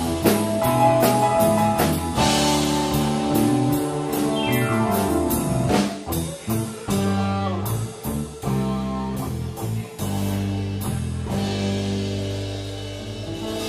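Live rock-blues band playing: electric guitar over a drum kit. Midway the playing breaks into short, clipped hits with gaps between them, then settles into a long held chord near the end.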